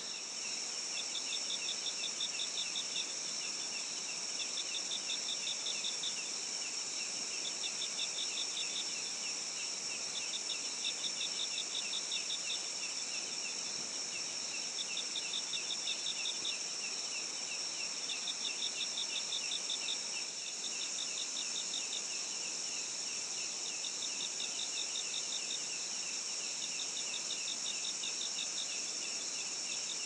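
Chorus of crickets and other insects: a steady high-pitched drone with a pulsing trill that comes in bursts of about two seconds, repeating every few seconds.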